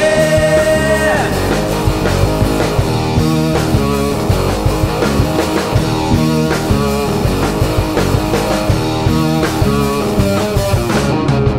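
Studio-recorded rock band playing: electric guitar, bass guitar and drums.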